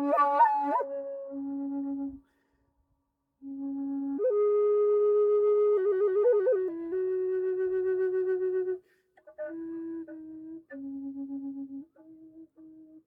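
Handmade wooden Native American style flute playing a slow melody of long held notes, with a quick trilled ornament about halfway through. There is a short pause near the start, and the phrases turn shorter and quieter toward the end.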